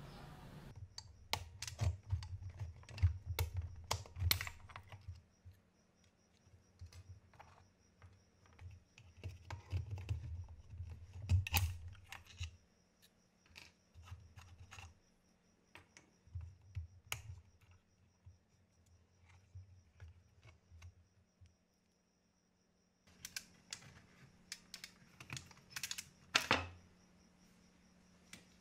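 Irregular plastic clicks, taps and knocks as the parts of an IBM Model F XT keyboard's case are handled and pried apart on a wooden table, with dull low handling thumps mostly in the first half. A faint steady hum runs underneath.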